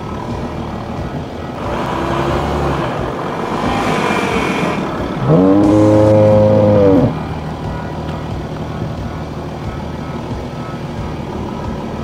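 A cow mooing: one long, low call about five seconds in, rising at the start and dropping off at the end. It plays over a steady background hum, with a rising rushing noise just before it.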